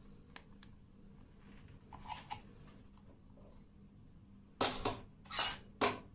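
Hands handling a pellet revolver and its box: faint light clicks and clinks, then three louder short clatters near the end.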